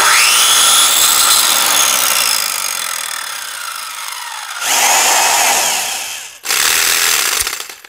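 Three power-tool sound effects in a row: a long motor whine that rises at the start and slowly sinks over about four and a half seconds, then two shorter bursts of noisy whirring, each cutting off suddenly.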